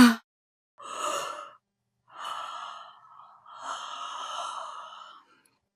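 Woman yawning: the end of a voiced yawn falling in pitch, then three breathy, unvoiced breaths, the last and longest about a second and a half.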